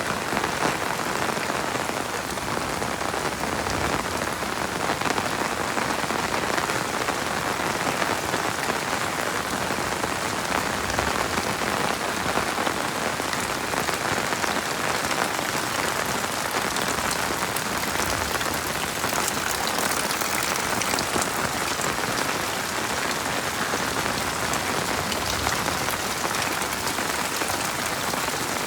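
Heavy rain falling steadily: an even, dense hiss of countless drops with no thunder.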